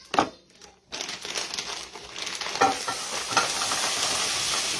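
Scallops poured into hot olive oil in a pan, sizzling from about a second in and getting louder and steadier, with a few crackles. Just before, a sharp snip of scissors cutting the bag open.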